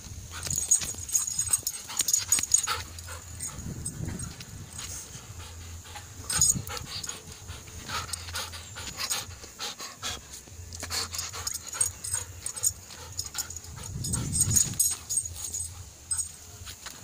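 A dog panting close by, amid scattered clicks and rustles, over a steady high-pitched drone.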